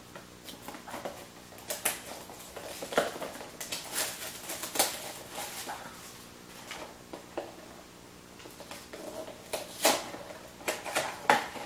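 Small cardboard blind boxes and their foil bags being torn open by hand: irregular crinkling, rustling and sharp crackles, busiest in two spells with a quieter stretch between.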